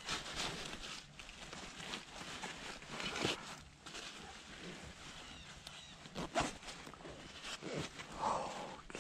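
Dry leaves and clothing rustling with scattered crackles and small knocks as the hunter shifts on the forest floor and handles a pack.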